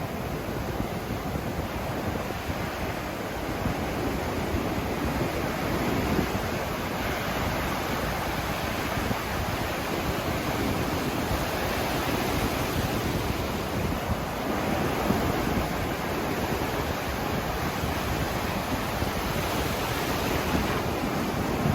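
Ocean surf breaking and washing up the beach in a continuous rushing wash that swells and eases every few seconds, with wind on the microphone.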